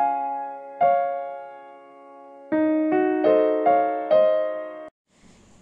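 Background piano music: a few struck chords that ring and fade, then quicker notes, cutting off suddenly near the end.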